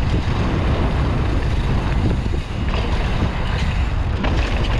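Wind rushing over the microphone of a camera on a mountain bike riding fast down a dirt trail, with the tyres rolling over dirt underneath. A steady low rumble with no engine.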